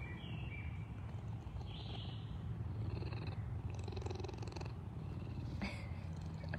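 A cat purring close to the microphone: a steady low rumble, with a few faint rustles over it.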